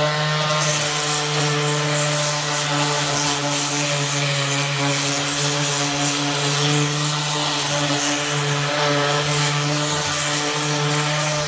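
DeWalt 20V cordless random orbital sander running steadily with its pad pressed on a painted wooden stair tread, roughing up the paint. It is a continuous motor hum with a scrubbing hiss.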